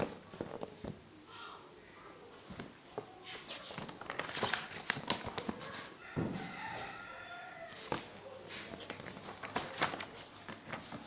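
Paper rustling and clicking as a booklet's pages are handled and turned, with a rooster crowing once for about a second and a half, some six seconds in.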